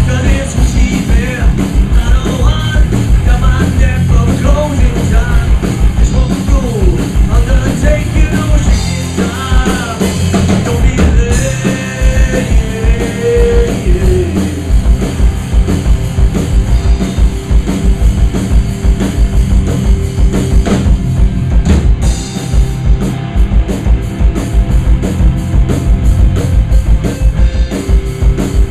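Loud rock music from a full band: drum kit keeping a fast, steady beat under guitars, with a wavering melody line over the first half.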